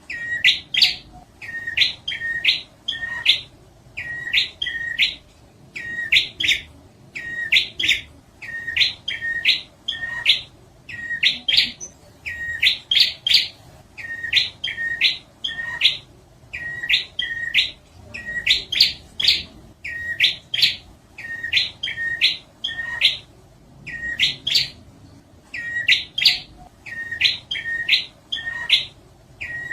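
Prinia (prenjak) song played as a bird-trapping lure recording: short clusters of sharp, high chirps repeating without pause, a cluster every couple of seconds.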